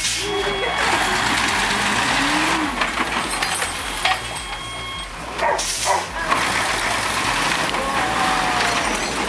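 Heavy logging truck running with a loud, steady hiss typical of air brakes, and a sharp burst of noise about five and a half seconds in. Voices call out briefly now and then over it.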